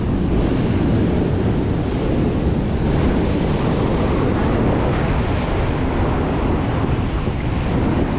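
Wind buffeting the microphone over heavy surf breaking on the rocks: a steady, dense rush of wind and crashing sea.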